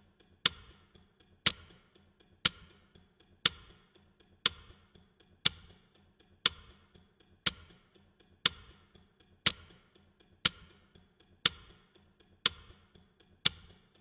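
Ticking-clock sound effect: rapid, even clicks with a louder accented tick once a second, the kind of ticking used to build tension.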